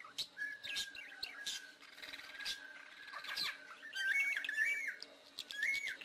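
Wild birds chirping and calling in forest, many short sharp chirps over a long steady high-pitched tone, with a longer repeated call about two-thirds of the way through.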